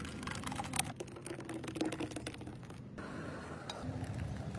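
Stainless steel bowls clinking and scraping while thick blended batter is poured from one into another, with a quick run of sharp clicks in the first second and lighter clicks after.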